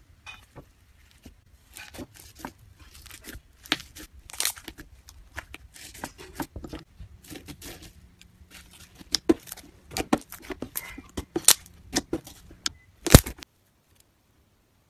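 Floam, white slime mixed with pink foam beads, being squeezed and pressed by hand: many small, irregular crackles and pops. The sharpest pop comes near the end, and then the crackling stops.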